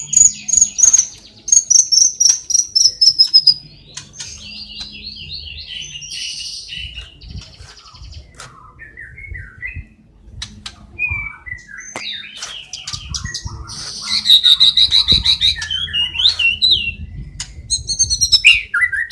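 White-rumped shama (murai batu) song with mimicked calls, as played for training caged birds: rapid varied chirps, falling whistled phrases, trills and sharp clicks in loud bursts separated by short pauses.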